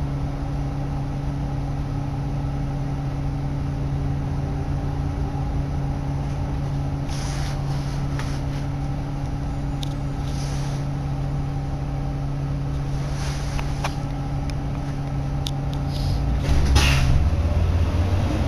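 Interior of a Nova LFS articulated city bus: the diesel engine hums steadily at idle, with a few brief hisses and clicks in the middle. Near the end the engine rumble grows louder as the bus pulls away.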